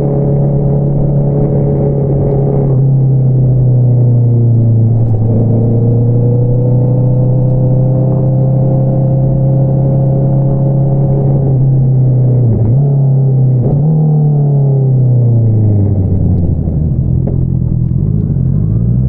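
Honda CBR650R inline-four engine running through an Akrapovič single-outlet exhaust while riding, a steady engine note with two quick breaks in power about twelve and thirteen seconds in, then the revs falling away.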